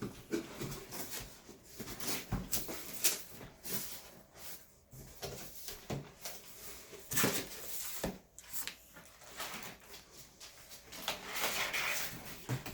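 Irregular rustling, crinkling and knocks of a bicycle's cardboard box and packing material being opened and handled.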